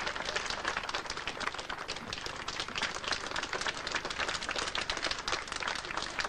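A crowd applauding: a steady, dense patter of many hands clapping.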